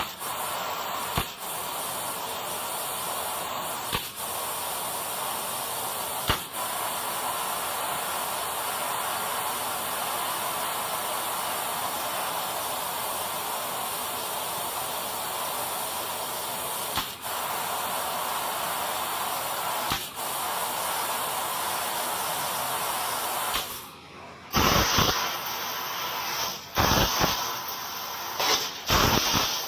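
Fiber laser cutting machine cutting metal plate: a steady hiss of the cutting jet, broken by a short click every few seconds. Near the end the hiss stops briefly, then a run of loud sharp pops follows.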